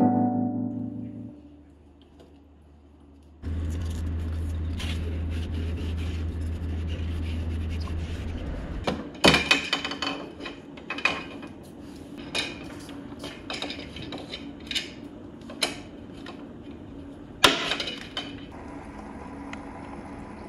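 Piano music fades out, and a few seconds later a steady low hum starts. From about nine seconds in, a series of sharp plastic clicks and knocks sounds over steady water bubbling and gurgling from a Tunze 9001 hang-on protein skimmer running in a marine aquarium.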